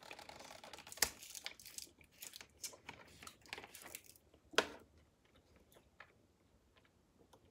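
Sweet Baby Ray's plastic squeeze bottle of barbecue sauce squeezed upside down, sauce and air sputtering out in an irregular run of wet crackles and clicks. A sharp click about a second in and another about four and a half seconds in, then it goes quiet.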